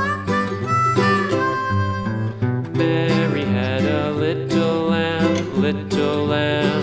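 Country-style background music: harmonica notes over acoustic guitar, the band thickening after about two seconds.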